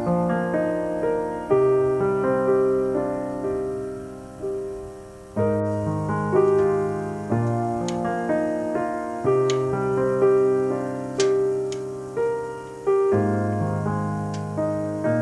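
Background piano music: a slow, gentle melody of single notes and chords, each struck and left to ring and fade.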